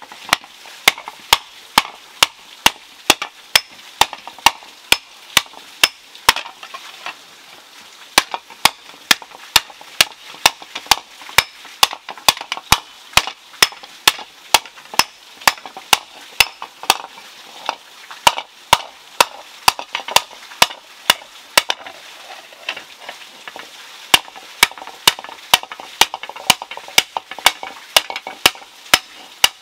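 Hand hammer beating a red-hot iron pan blank on a stone boulder used as an anvil: sharp metallic strikes about three a second, with two short breaks, about a quarter of the way through and again about three quarters through.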